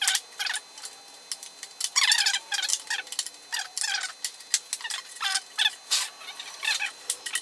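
Ratchet wrench clicking in repeated short bursts, a couple a second, as bolts are backed out of the engine's sheet-metal tinwork.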